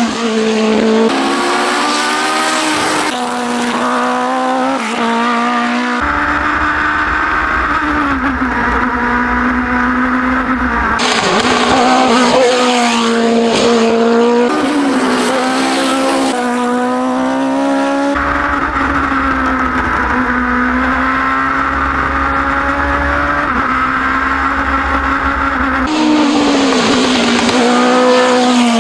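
Formula 3 single-seater race car at full throttle up a hill-climb course. The engine note climbs and drops again and again as it revs out and changes gear.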